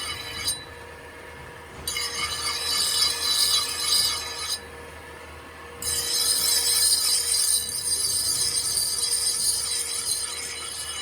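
A steel knife blade being ground or sanded against a power tool: a high-pitched scraping noise in long passes, breaking off twice for about a second as the blade is lifted away.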